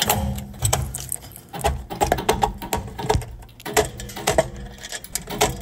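Irregular clicks and rattles of quick-connect spade terminals being worked off a furnace control board's terminal pins with pliers, the metal tool and connectors tapping and scraping on the board and cabinet.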